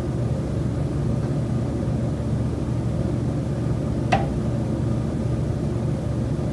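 Steady low mechanical rumble and hum in a high-rise condo unit, broken once about four seconds in by a single sharp knock with a brief ring: the recurring knocking noise from the building's common elements.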